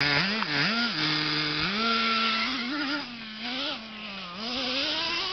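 Radio-controlled car's motor whining, its pitch rising and falling repeatedly as the throttle is worked, then climbing near the end as it speeds up.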